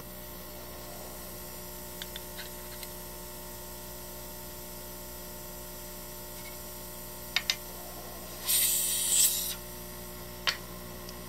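Airbrush spraying paint in one short hiss of about a second near the end, the loudest sound here, with a few small clicks before and after as it is handled, over a steady hum.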